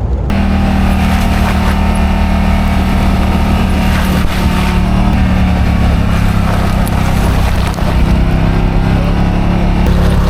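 Vehicle engine running steadily under way, its note holding with small shifts in pitch and a brief dip about eight seconds in.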